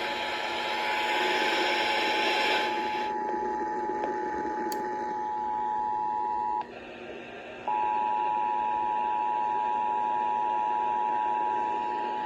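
Emergency Alert System attention signal heard over a radio: a steady two-note alarm tone. It cuts out for about a second past the middle and then resumes. Heavy hiss lies under it for the first couple of seconds.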